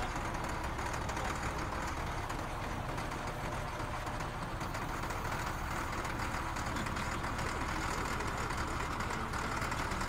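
Motor grader's diesel engine idling steadily, with no revving.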